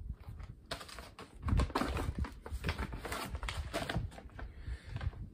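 Crinkling and rustling of stiff white Meal, Cold Weather ration bags being handled, set down on a pile and pulled from a cardboard case: a busy run of crackles and light knocks that thins out near the end.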